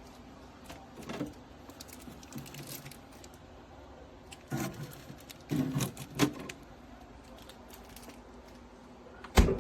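Handling noise from a compact mini fridge being moved and turned: scattered knocks and clicks, a cluster of them in the middle, and one sharp, loudest knock near the end.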